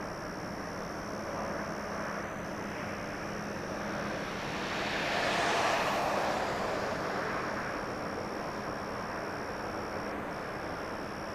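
A DD51 twin-engine diesel-hydraulic locomotive hauling a long freight train, heard from far off as a steady engine drone. It swells and fades again around the middle.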